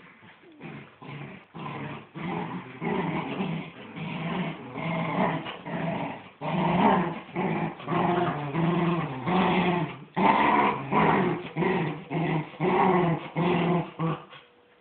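Miniature dachshunds growling in play while tugging a toy between their jaws: a continuous run of rapid pulsing growls that gets louder about six seconds in and stops just before the end.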